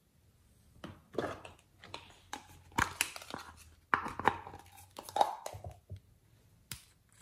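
Hands handling small plastic containers and a nail polish bottle: a run of clicks, knocks and rustles starting about a second in, with one last click near the end.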